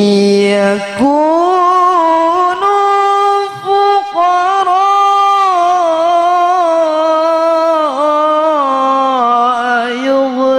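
A man's solo voice chanting Qur'an recitation (tilawah) into a microphone, drawing the phrases out into long, sustained, ornamented notes that slide and waver in pitch, with a few brief breaks for breath.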